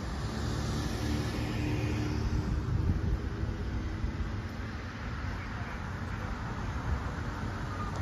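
Road traffic noise: a car going by on the street, swelling to its loudest two to three seconds in and then easing back to a steady low rumble.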